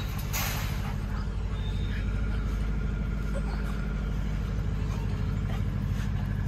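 A motor running with a steady low drone.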